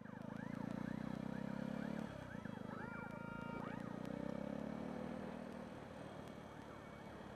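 Yamaha YZF-R125 motorcycle's single-cylinder engine running, its note dropping about two seconds in. Over it a fire engine's siren wails in quick rising and falling sweeps, clearest in the first half.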